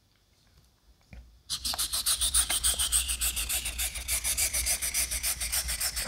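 Straight razor blade rasping back and forth on a wet Atoma 600 diamond plate in quick, even strokes, starting about a second and a half in: the bevel being reset at coarse grit.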